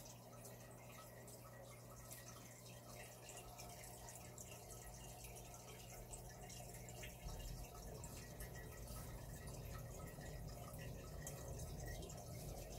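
Aquarium water bubbling and dripping, a dense patter of small drips and bubble pops over a steady low pump hum. A low rumble joins about seven seconds in.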